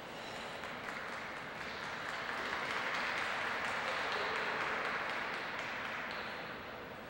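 Small audience applauding, the clapping swelling over the first few seconds and dying away near the end.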